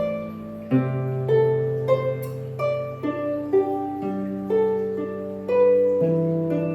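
Harp being played slowly: single plucked notes about every half second over sustained bass notes that change about a second in, four seconds in and six seconds in, each note ringing on.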